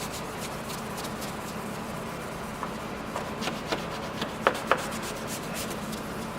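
Steady rubbing of fine 3000-grit abrasive over a plastic headlamp lens, sanding off its sun-faded haze. A run of sharp clicks comes in the middle, the two loudest close together.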